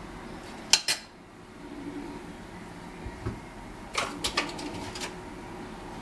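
Kitchen utensils clinking against dishes: two sharp clinks about a second in, then a few more about four seconds in.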